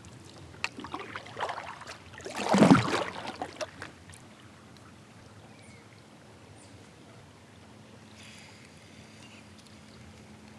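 Water splashing and light knocks around a kayak as it moves, with one loud splash about two and a half seconds in; after that, quiet water with a faint steady hum.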